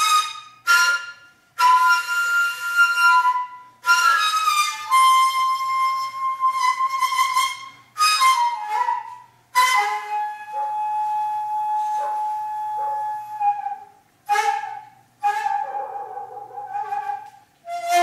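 Daegeum, the Korean transverse bamboo flute, playing a slow melody in short phrases with brief breaks between them, and one long held note about halfway through.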